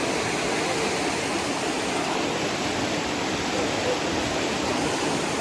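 Rushing whitewater of Big Spring's outflow churning over rocks: a steady rush of water.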